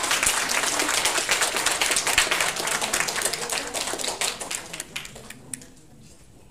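Audience applauding with dense clapping that dies away about five seconds in.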